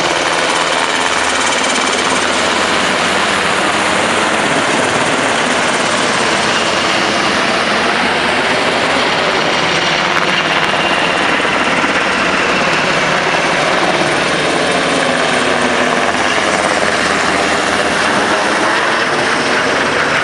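UH-60 Black Hawk helicopter flying overhead and circling, its main rotor and twin turbine engines running loud and steady.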